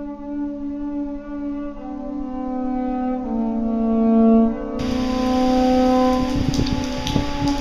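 Music of long held brass-like notes stepping from one pitch to the next. About five seconds in, a steady hiss and a few low thumps join it.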